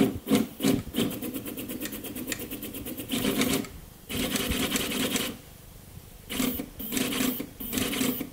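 Stepper motors of a cable-driven delta 3D printer driving its cable winches, moving the print head in quick bursts with short pauses between moves. The motors give a pitched buzz, with a run of fast, evenly repeated strokes in the first few seconds.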